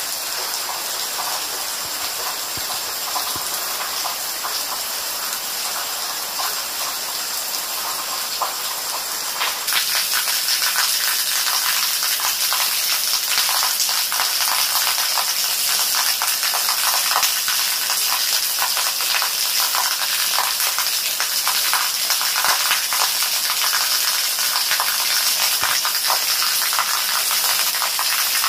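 Steady rain falling: a dense hiss with many small drop taps. It turns abruptly louder about ten seconds in.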